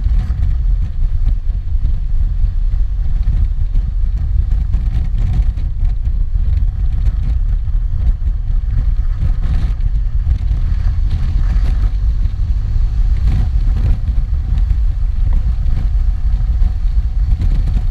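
Honda Crosstourer motorcycle on the move: a steady low rumble of wind buffeting and engine and road noise, picked up by a GoPro's built-in microphone with no external mic.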